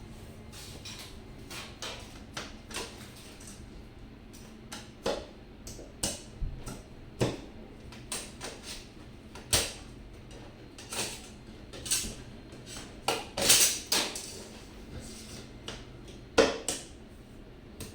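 Irregular clicks, knocks and light clatter of hard objects being handled, in uneven bursts, with the loudest cluster about three quarters of the way through.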